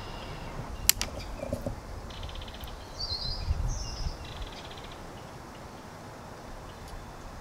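Songbirds calling in woodland: short chirping phrases and buzzy trills, with a single sharp click about a second in.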